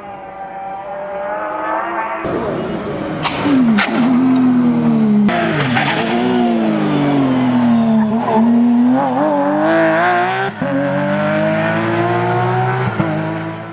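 Porsche 911 GT3 rally car's flat-six engine driven hard, growing louder over the first two seconds. Its pitch then repeatedly drops and climbs again through shifts and revs, with abrupt jumps about two seconds in and again near the end.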